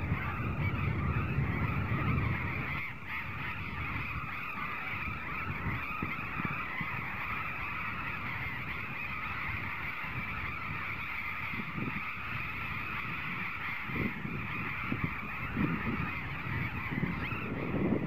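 A nesting colony of burrowing parrots calling, a dense, steady chorus of many overlapping shrill calls.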